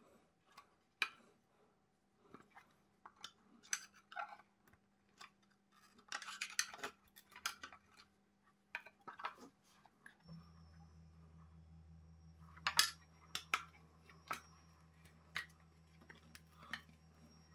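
Screwdriver and headlamp parts clicking, clinking and scraping on a stone worktop as a motorcycle headlamp is taken apart, with a denser patch of scraping about six seconds in. A steady low hum starts about ten seconds in.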